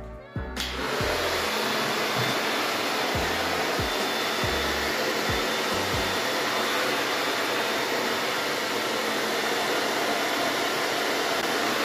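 Hair dryer fitted with a diffuser attachment, switched on about half a second in and then blowing steadily at a constant level.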